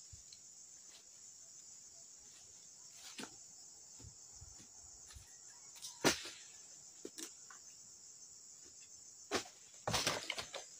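A steady, high insect chorus drones throughout, with a few sharp knocks and thumps over it: the loudest about six seconds in, and a quick cluster near the end.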